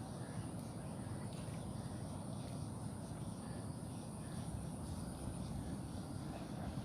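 Insects, crickets or similar, trilling as one continuous high-pitched buzz over a steady low rumble.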